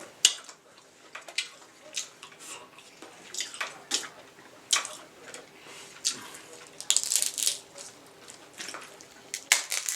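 King crab leg shells being cracked and pried apart by hand: a series of sharp cracks, snaps and crunches with wet, sauce-slick handling, with a dense run of crackling about two thirds of the way in.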